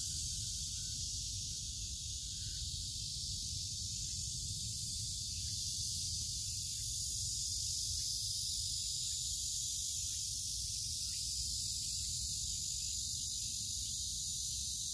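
Steady, high-pitched insect chorus over a low rumble.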